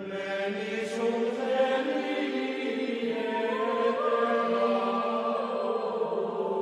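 Chanted mantra music: voices holding long, drawn-out notes that step slowly in pitch.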